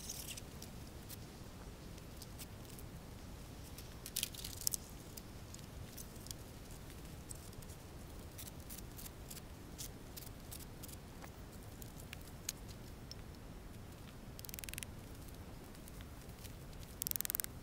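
A roof-rack car awning being unpacked and set up: scattered clicks and rustling of canvas and poles, with a few short rasping bursts about four seconds in, near fifteen seconds and near the end, over a steady low rumble.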